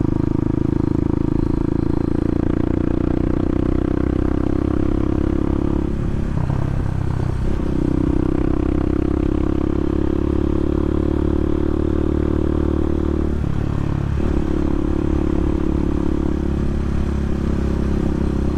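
A Bashan 250 dirt bike's engine running steadily under way. The note briefly drops off and picks up again twice, about six seconds in and again about thirteen seconds in.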